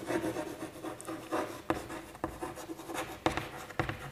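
Chalk writing on a chalkboard: short scratchy strokes with several sharp taps as the letters are formed.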